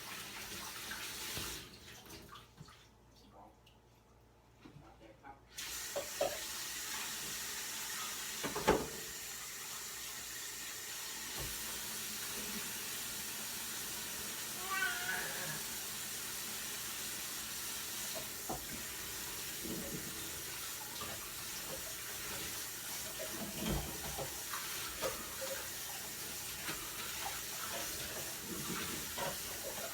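Steady rushing, water-like hiss with scattered small knocks and clicks; it drops away for a few seconds near the start, and a brief faint chirping comes about halfway through.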